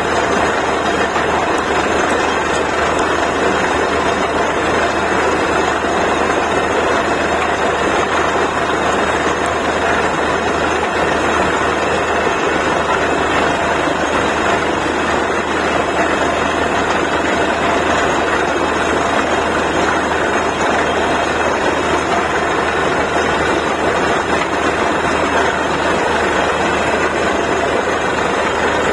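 Borewell drilling rig's heavy engine running steadily, a loud, constant machine noise with no breaks.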